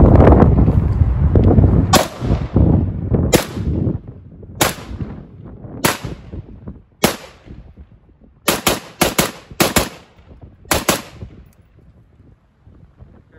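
Rifle shots from a retro M16A1-style AR-15 in 5.56 mm, each one a sharp crack with a short echo. Five shots come about a second apart, then a quick string of about six in under two seconds, then two more in quick succession.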